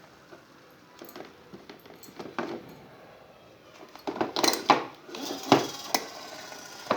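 Light clicks and clinks of small hard objects handled, then a louder clatter of sharp knocks about four seconds in.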